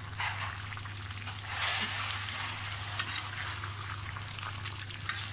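Beef, cabbage and potato curry sizzling in an iron karahi, a steady hiss over a low hum, with a few light clicks from the spatula against the pan.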